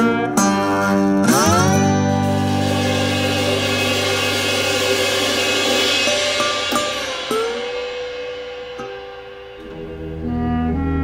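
Music: a band's strummed guitar chords end on a long held chord with a cymbal ringing out and slowly fading, after a quick rising sweep about a second in. Near the end a new, softer tune begins.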